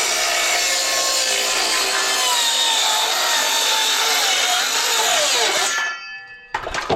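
Power saw cutting wood, running steadily, then the motor winds down with a falling pitch and stops about six seconds in. A few knocks and clatter follow near the end.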